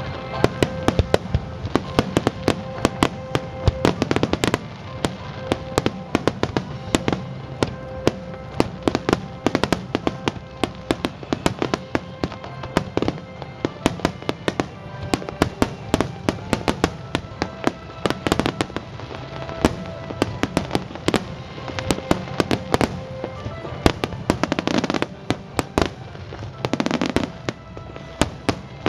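A fireworks display's finale barrage: a rapid, unbroken run of sharp bangs and crackles, several each second, over a low rumble. Music with held notes plays underneath.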